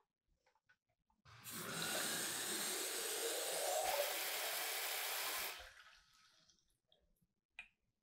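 Water running from a kitchen tap into the clear plastic water tank of a Dyson V12s Detect Slim Submarine wet-roller head, filling it. The flow starts about a second in and stops after about four seconds.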